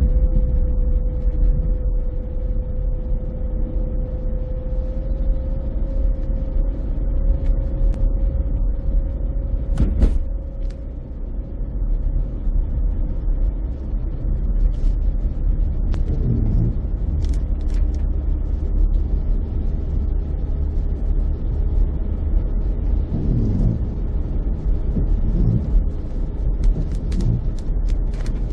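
Car driving on a wet road in rain, heard from inside the cabin: a steady low road and engine rumble with tyre noise. A steady hum fades out about a third of the way through, and a few sharp clicks break in, one about ten seconds in and a cluster near the end.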